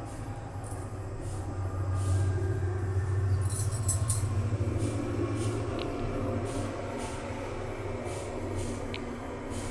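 Gas stove burner flame giving a steady low rumble under the tawa, swelling louder for a few seconds midway.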